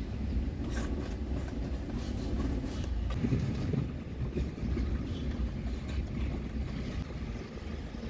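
Mitsubishi L300 van driving on the road, heard from inside the cab: a steady low rumble of engine and road noise.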